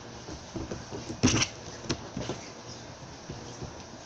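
Sticky neon slime being stretched and squished by hand, giving a few irregular sticky pops and crackles, the loudest about a second and a half in.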